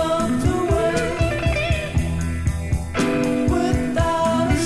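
1970s psychedelic prog rock recording: a guitar line over a steady drum beat and bass, the melody climbing in pitch twice.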